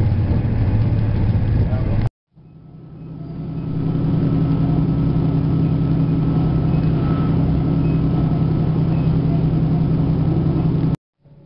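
Steady drone of a moving vehicle heard from inside, an engine hum over rolling noise. The sound cuts out suddenly about two seconds in, fades back in over a second or two, and cuts out again near the end.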